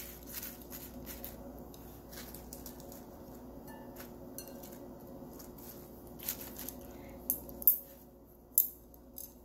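Chopsticks tossing salad leaves in a glass bowl: soft leaf rustling with scattered sharp clicks of the chopsticks against the glass, the loudest few near the end, over a steady low hum.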